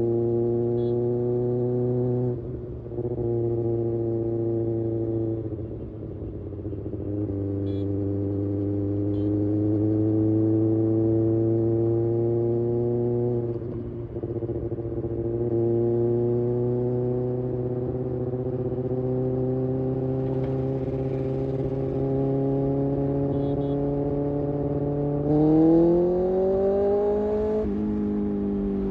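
Kawasaki Ninja ZX6R inline-four sportbike engine running at steady cruising revs while ridden, with a few brief dips in level. Near the end the revs rise for about two seconds, then drop back.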